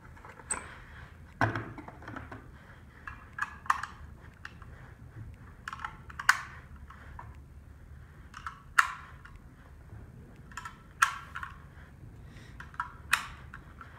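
6.5 Grendel cartridges being pressed one at a time into a rifle magazine, a sharp click every two to three seconds as each round snaps into place.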